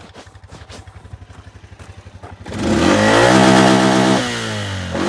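ATV engine idling with an even pulse, then revved hard about two and a half seconds in, held high, dropping back and blipped up again near the end.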